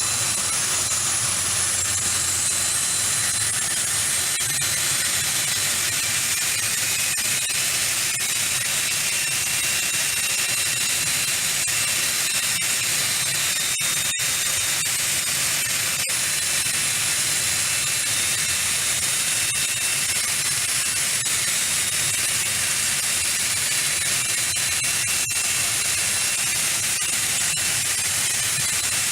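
Turbine engines of a multi-engine aircraft running steadily: an even, high hiss with faint, thin whining tones and no rise or fall.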